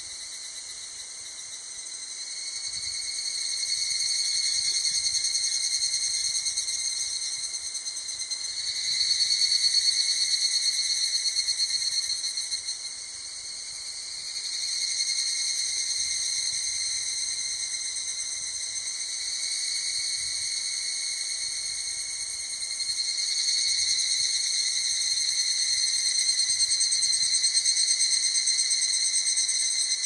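A steady, high-pitched insect chorus singing without a break. It grows louder over the first few seconds, eases off briefly near the middle and swells again toward the end.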